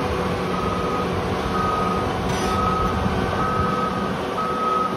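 Cat MD6200 rotary blasthole drill's alarm beeping about once a second, each beep a single steady tone of about half a second, over the steady running of the machine's diesel engine.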